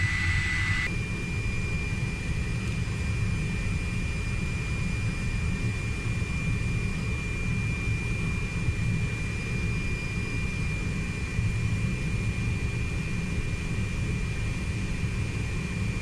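Steady jet-turbine running noise: a low rumble under a constant high-pitched whine, which steps slightly higher about a second in.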